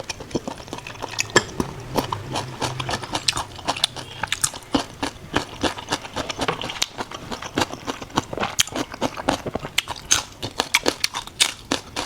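A person chewing huyết dồn (pork intestine stuffed with pig's blood) close to the microphone: a dense run of sharp wet clicks and smacks, several a second.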